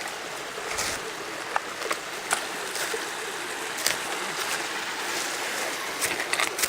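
Creek water rushing steadily, with a few short, sharp snaps and clicks scattered through it.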